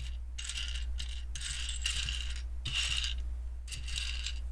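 Loose plastic LEGO pieces clattering as they are rummaged through, in short bursts about once a second.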